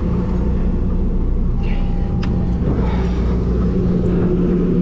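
Sportfishing boat's engine running with a steady low drone and hum, with one sharp click about two seconds in.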